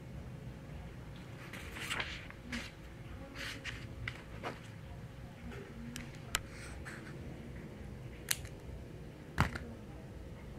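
Faint scattered clicks and rustles, a dozen or so at uneven intervals, with the sharpest click near the end, over a steady faint room hum.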